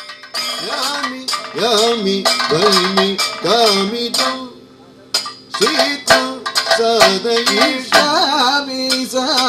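Kathakali vocal music: a male singer sings a slow, ornamented melody with sliding pitch, over repeated sharp metallic cymbal clashes. The singing breaks off about four and a half seconds in and picks up again a second later.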